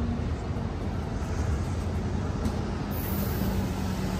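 Bilevel Amtrak passenger cars of a departing train rolling past the platform close by: a steady rumble of steel wheels on the rails, with a faint hum and a few light clicks.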